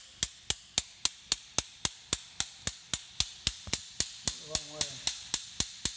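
Light hammer taps, about four a second at an even pace, driving the E-Type engine's drive gear onto its shaft.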